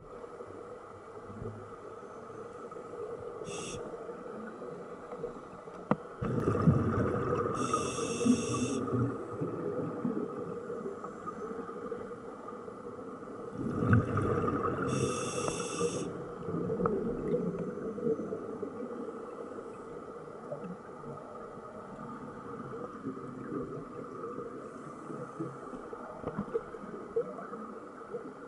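Scuba diver breathing through a regulator underwater: two breaths, about eight seconds apart, each a hiss of inhaled air and a rush of exhaled bubbles. A steady underwater hum lies under them.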